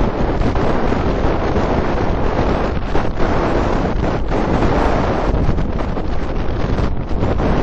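Strong wind blowing across the camera's microphone, a loud, steady noise with no other distinct sound over it.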